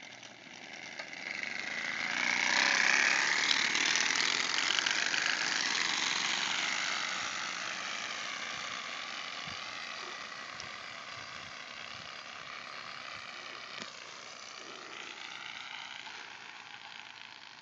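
Several kids' bicycles with baseball cards clipped against the spokes and toy exhaust pipes fitted. As the bikes ride off, the cards flap against the spokes in a motor-like rattle that builds over the first couple of seconds, then slowly fades as they pull away.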